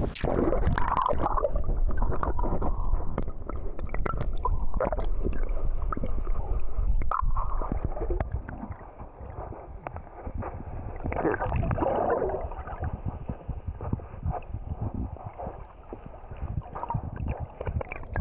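Sea water sloshing and gurgling with splashes, heard muffled. Louder splashing comes near the start and again about eleven seconds in, over a steady low rumble.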